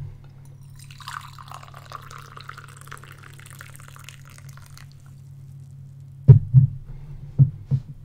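A steady low hum under a few seconds of hissing, splashing noise, then four sharp knocks in two close pairs near the end.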